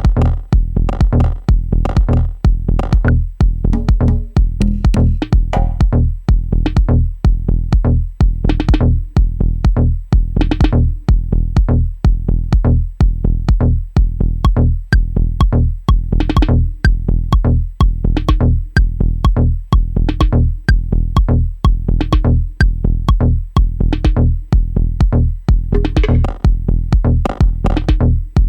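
Dub techno groove playing from a Native Instruments Maschine 2.0 drum machine: a steady kick about twice a second over deep bass, with occasional brighter hits reaching higher up.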